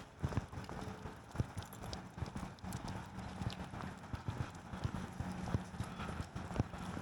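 Footsteps on a hard surface: irregular taps and scuffs, a few a second.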